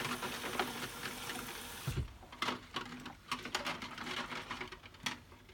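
Tap water running into a soapy stainless steel sink, shut off about two seconds in with a low thump. After that come irregular small splashes and clicks as hands move plastic nebulizer parts (medicine cup and mouthpiece) around in the sudsy water.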